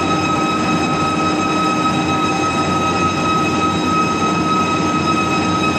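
Metal lathe running steadily, a constant machine whine with several steady tones and no break or change in speed.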